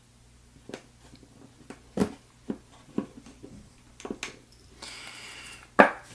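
Small metal clicks and taps of padlock parts being handled as the lock is taken apart, about eight separate knocks. A short scraping rustle comes near the end, followed by a sharp click.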